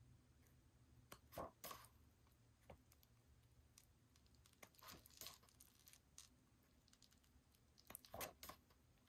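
Faint rustle of glossy photobook pages being turned by hand, three times: about a second in, around the middle, and near the end.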